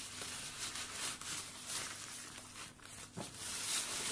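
Rustling and crinkling of a nylon tent carry bag and clear plastic packaging being handled and pulled open, with a light knock about three seconds in.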